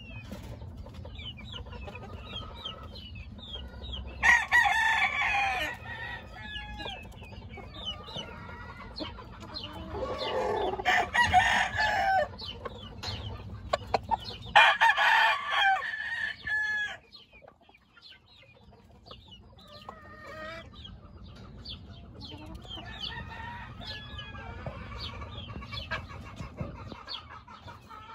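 Gamefowl roosters crowing, three loud crows about 4, 10 and 15 seconds in, with fainter crows and clucks from other chickens in between. A low steady rumble underneath stops about two-thirds of the way through.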